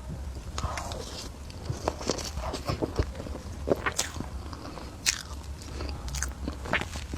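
Close-miked mouth sounds of a person eating: bites and chewing, with many short wet clicks and smacks.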